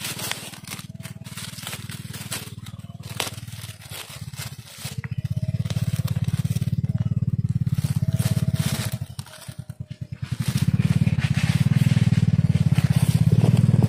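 Dry undergrowth crunching and scraping. About five seconds in, a loud low drone with fast even pulsing sets in, drops out briefly near ten seconds and returns.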